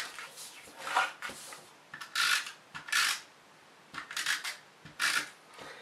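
Adhesive tape runner drawn along cardstock box flaps in about five or six short rasping strokes, laying tape on the corners before the box is assembled.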